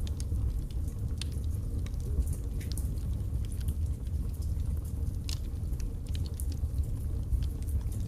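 Wood fire burning in a fireplace: a steady low rumble of flames with frequent irregular crackles and pops from the burning logs.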